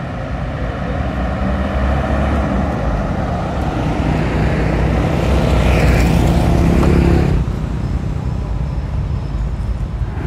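Motor vehicles passing on the road close by: an engine hum grows louder, peaks about six seconds in, and breaks off abruptly about seven seconds in.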